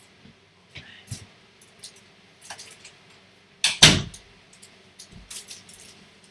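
Cardboard boxes being carried in and set down: scattered knocks and scrapes, with one loud thump just before four seconds in.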